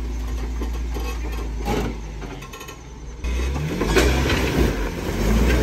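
Off-road vehicle engine running at low speed, then revving up suddenly about three seconds in, its pitch rising, with rattling and crunching from the vehicle working over the terrain.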